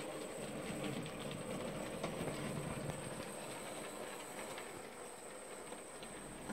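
Model railway diesel shunter running along the track: its small electric motor running steadily, with a few light clicks from the wheels on the rails.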